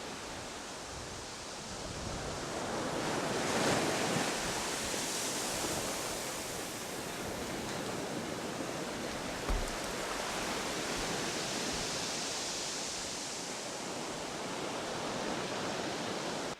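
Ocean surf washing onto the shore, a steady rush that swells loudest about four seconds in. A short low bump near the middle, like wind hitting the microphone.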